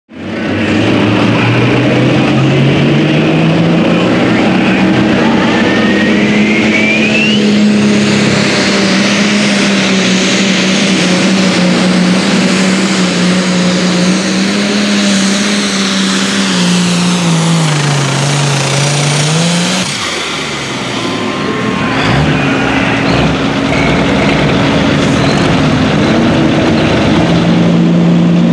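Limited Pro Stock pulling tractor's turbocharged diesel engine at full throttle on a pull. The engine note climbs in the first few seconds, holds steady, sags a little near 18 seconds and drops away about 20 seconds in. After that a second pulling tractor's engine runs at a steady, lower speed.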